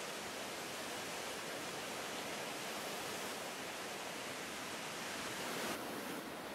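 Steady rushing of sea surf on a pebble beach, an even hiss with no distinct strokes, thinning slightly near the end.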